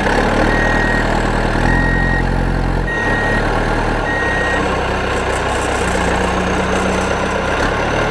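Heavy machine engine running steadily, with a reversing alarm beeping about every 1.2 s that stops about halfway through. It is a dubbed sound effect for a toy JCB backhoe loader.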